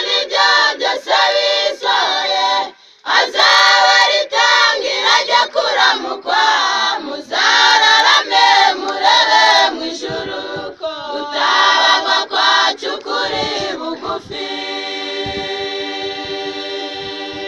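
A mixed choir of men and women singing unaccompanied in short phrases, ending on a long held chord about fourteen seconds in.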